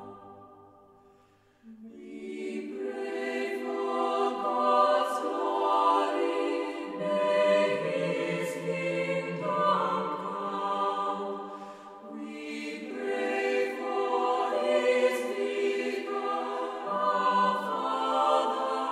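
Background music: a choir singing slow, long-held chords. One phrase fades out near the start and a new one begins just under two seconds in.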